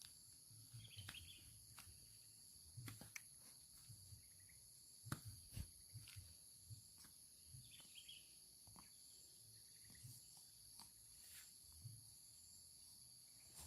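Near silence: a faint, steady insect chorus of several high, shrill tones, with occasional soft clicks and knocks and a few faint chirps.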